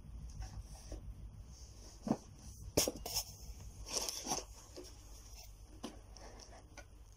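Handling noises as a sewing machine and its packaging are moved about: scattered light knocks and crinkles, the sharpest about two and three seconds in, over a steady low hum.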